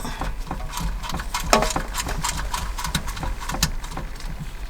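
Rapid, irregular clicking and rattling of plastic wiring connectors and cables being handled while a car stereo head unit is hooked up.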